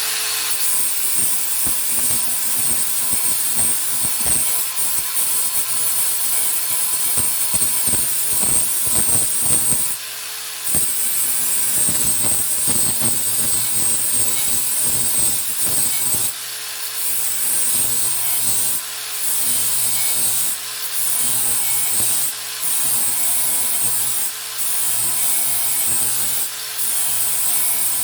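Dewalt DCG412N 18V cordless angle grinder running with a 120-grit flap disc, grinding the edge of a steel lawnmower blade: a steady motor whine under a loud grinding hiss. In the second half the grinding dips briefly about every two seconds.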